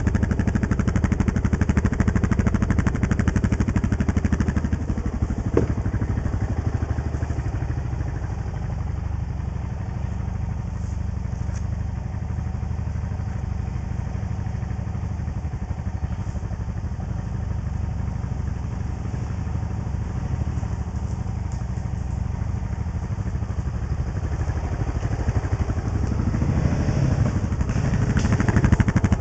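Honda TRX700XX quad's single-cylinder engine with an FMF exhaust running under way, easing to lower revs through the middle and picking up again near the end. A single sharp knock about five seconds in.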